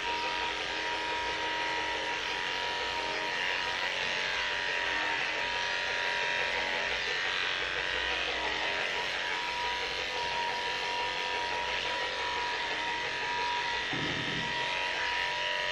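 Electric dog clippers running steadily with a constant high whine as they cut through a bichon maltese's coat. There is a brief low bump near the end.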